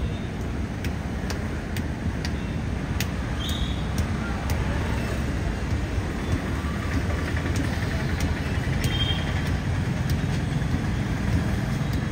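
Steady low rumble of road traffic, with scattered light clicks and two brief squeaks as a tubeless tyre puncture plug is worked into the tread with a T-handle insertion tool.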